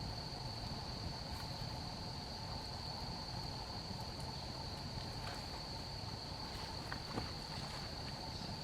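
Steady high-pitched chirring of insects in the woods, with a few faint clicks and taps.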